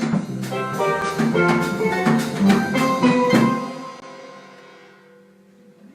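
Live harp jazz ensemble with percussion playing the closing bars of a tune. A final chord is struck about three and a half seconds in and rings out, fading away.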